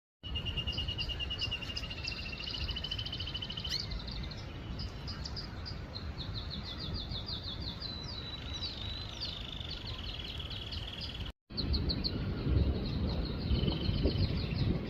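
Small songbirds chirping and trilling in rapid runs of high, quick repeated notes, over a steady low background rumble. The sound cuts out briefly about eleven seconds in; afterwards the birds go on and the low rumble is louder.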